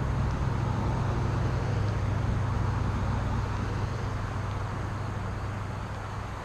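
Small boat motor running steadily with a low hum, easing off slightly near the end.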